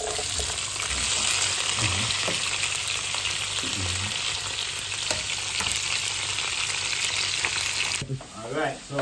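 Mixed chopped vegetables frying in a hot pan of oil, a steady sizzle that cuts off sharply about eight seconds in.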